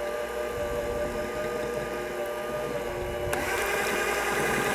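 Electric hand mixer running steadily, its beaters whipping eggs and sugar in a glass bowl until the mixture turns pale. About three seconds in its sound shifts higher and grows a little louder.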